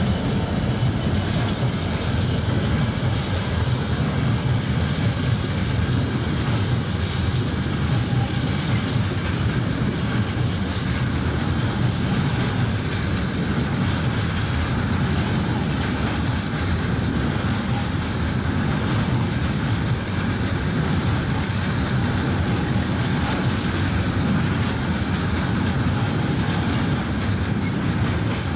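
Loaded container freight wagons rolling past at speed: a steady rumble of steel wheels on the rails, with a few clicks over the rail joints in the first several seconds.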